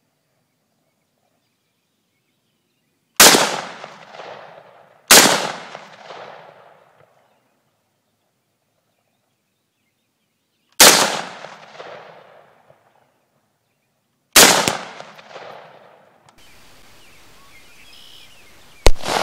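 AR-15 rifle in .223/5.56 firing single shots: four sharp cracks at uneven intervals, each trailing off in an echo over a second or so. Near the end, over a steady background hiss, one more shot.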